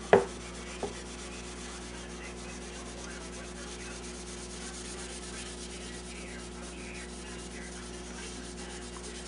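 0000 steel wool rubbing a wiping finish into the old lacquer on a wooden radio cabinet's veneer top: a faint, steady scrubbing. A sharp knock right at the start and a lighter click about a second in.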